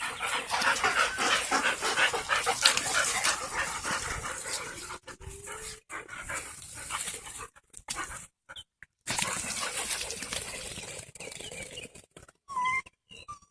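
Pet dogs panting and whimpering, over a dense rustling noise that thins out after about five seconds, with a short high whine near the end.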